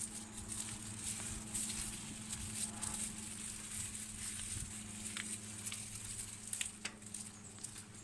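Powered wheelchair moving along a wooden boardwalk: a steady motor hum with a rough patter of the wheels over the planks, and a few sharp clicks about two-thirds of the way through.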